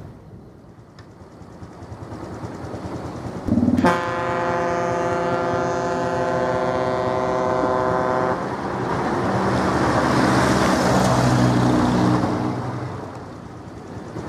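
Ship's horn from a large passenger vessel: one long, deep blast of about four and a half seconds that starts and stops sharply. After it comes a rushing noise with a low engine drone, which fades out near the end.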